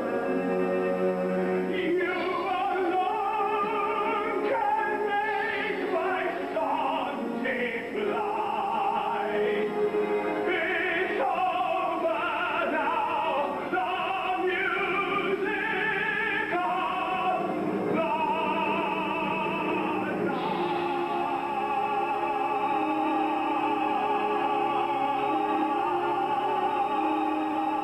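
Musical-theatre singing in operatic style with orchestral accompaniment, the voices in strong vibrato; about two-thirds of the way through, one long note is held.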